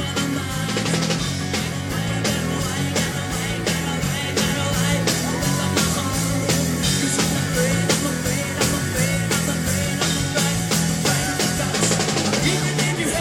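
Live rock band playing at full volume: drum kit beating out a steady rhythm under electric guitar, with a male singer singing into a microphone.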